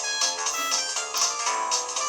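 Polyphonic ringtone of a Samsung V200 mobile phone playing a bright synthesized tune, a quick even run of notes with almost no bass.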